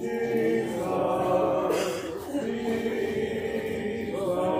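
A church congregation singing a hymn a cappella, many voices together in long held notes.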